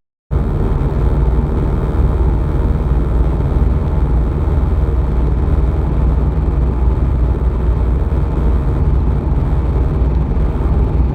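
2008 C6 Corvette driving at highway speed: a loud, steady drone of road and engine noise carrying a buzz from the passenger-side lower windshield. The buzz comes from a split in the rubber windscreen seal below the windshield.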